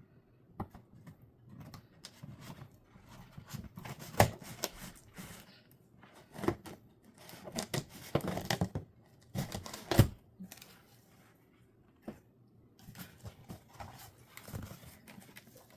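Cardboard shipping box being opened by hand: irregular rustling, scraping and tearing of cardboard and packing, with a few sharp knocks, the loudest about four and ten seconds in.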